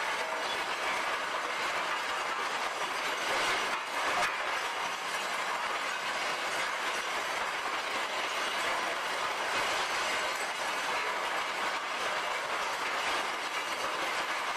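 Didion rotary sprue crusher running: iron gates, runners and sprue tumble against each other and the steel drum as it turns, knocking the foundry sand off, and spill from its discharge end into a crate. The result is a steady, dense metallic clatter.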